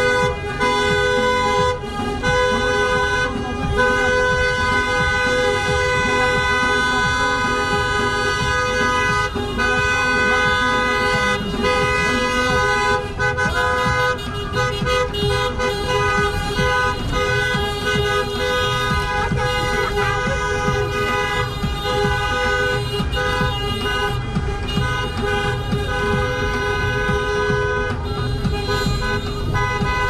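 Several car horns sounding together almost without pause, held for long stretches with short breaks, over engine and road noise: the celebratory honking of a slow-moving wedding convoy.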